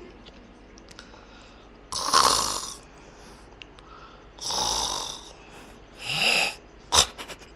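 A sleeping man snoring heavily, three loud snores about two seconds apart, really bad. A short sharp click comes near the end.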